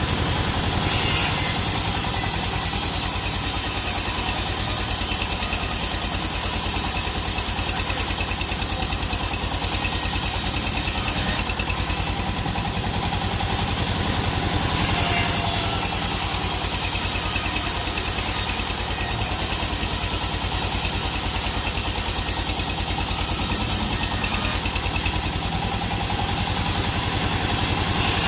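Sawmill machinery running steadily: a rapid low engine pulse with a high hiss over it. The hiss drops away twice for a few seconds.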